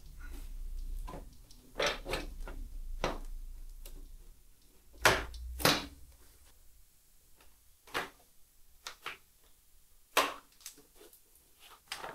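Scattered knocks and clunks as a dirt bike's seat is worked loose and lifted off the frame, the loudest being two knocks about five seconds in.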